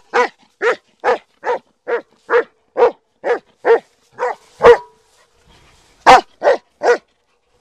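German Shepherd dog barking in a steady run, about two barks a second, then after a pause of over a second three more barks.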